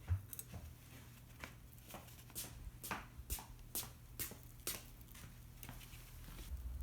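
Charcoal fire in a shichirin grill crackling, with irregular sharp pops about one or two a second over a low steady hum.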